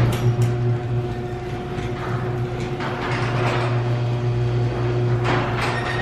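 LiftMaster/Chamberlain chain-drive garage door opener running on a newly replaced gear and sprocket, closing the door: a steady motor hum with irregular clatter from the chain, trolley and door.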